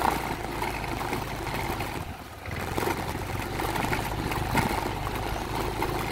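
Yamaha NMax 155 scooter's single-cylinder engine pulling at low speed up a rough dirt track. It dips briefly about two seconds in, then picks up again.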